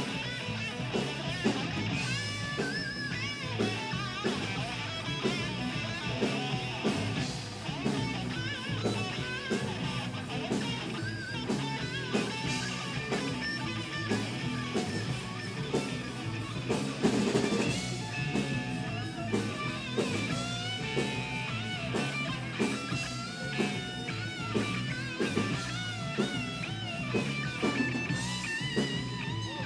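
Live rock band playing, heard from close to the stage: electric guitar with wavering, bent lead notes over a steady drum-kit beat.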